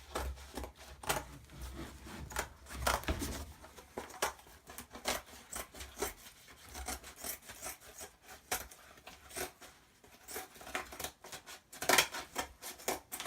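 Scissors snipping through cured fiberglass cloth, trimming the excess off a freshly molded shell: a long run of short, irregular snips.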